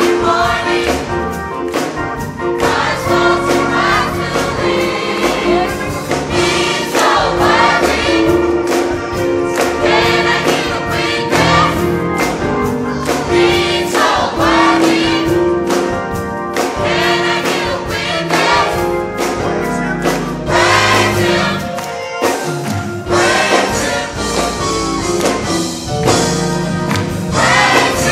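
Gospel choir of mixed children's, women's and men's voices singing together over instrumental accompaniment with held chords and a steady beat.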